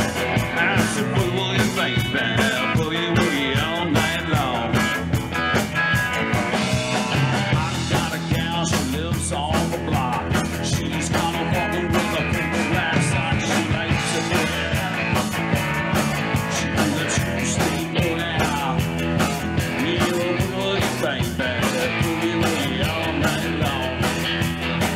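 Live rock band playing a boogie: two electric guitars, bass guitar and drum kit with a steady beat, between sung verses.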